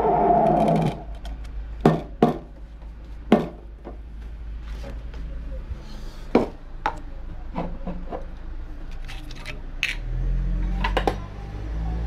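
A milk-frothing steam wand hissing into a stainless steel jug, cutting off about a second in. Then scattered clinks and knocks of the metal jug, cups and a measuring spoon being handled, with a low hum starting near the end.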